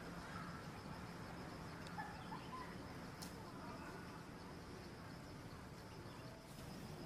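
Faint outdoor ambience: scattered short bird chirps over a steady, faint high-pitched whine, with a single sharp tick about three seconds in.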